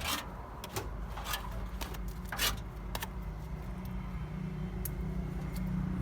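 A motor running steadily with a low hum, with a few sharp knocks and clicks over it in the first half.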